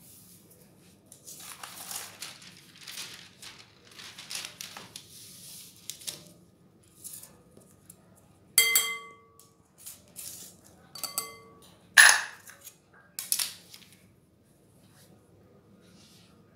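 Fine metal mesh sieve shaken over a glass mixing bowl while sifting cocoa powder and flour: soft rustling scrapes, then four sharp knocks of the sieve against the bowl about halfway through, two of them ringing briefly.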